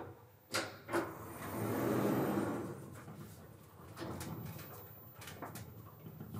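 Elevator doors opening: two clicks, then a sliding rumble that swells and fades over about two seconds, followed by a few light knocks.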